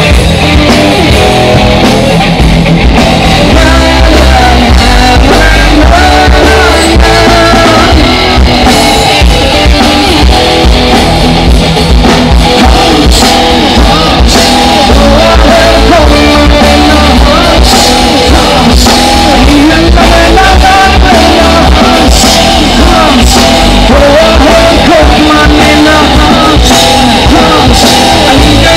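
Live rock band playing loud: a singer's lead vocals over electric guitars, bass guitar and a drum kit.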